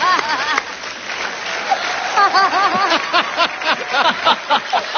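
Studio audience laughing and clapping, with loud, repeated laughter from people near the microphone over the steady patter of applause.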